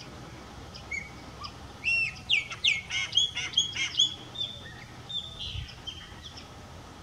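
Chopi blackbird (graúna) singing: a quick run of loud, clear whistled notes and sharp up-and-down slurs, starting about two seconds in and tapering off after about six seconds.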